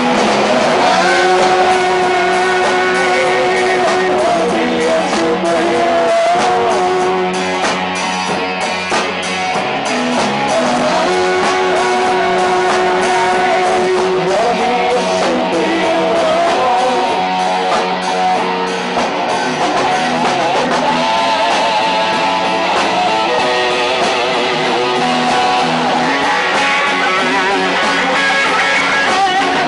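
Rock band music with electric guitars and a voice singing over it, continuous and loud.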